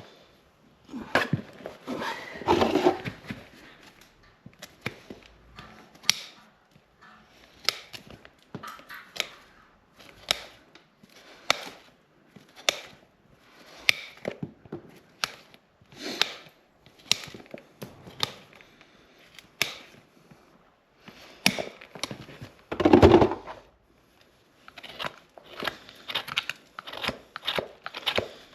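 Farrier's tools cutting and paring a horse's hoof horn: irregular sharp snips, cracks and scrapes, a second or so apart. About two-thirds of the way through comes one louder, heavier knock.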